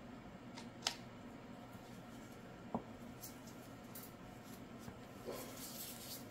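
Faint handling sounds of plastic measuring cups and silicone molds on a silicone craft mat: a light click about a second in, a soft knock a couple of seconds later, then soft rubbing and rustling near the end.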